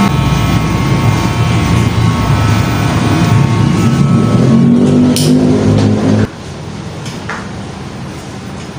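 Electric hair clipper buzzing as it cuts hair over a comb, switched off about six seconds in.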